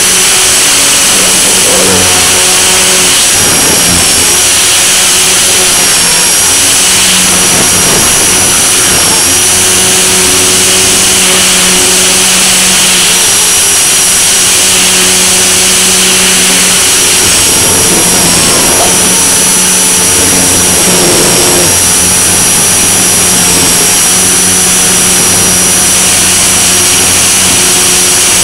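Blade mCP X BL micro RC helicopter in flight, heard from a camera mounted on it: the brushless motor and rotors make a loud, steady high whine over a rushing noise. The whine's pitch dips briefly a few times as the throttle shifts.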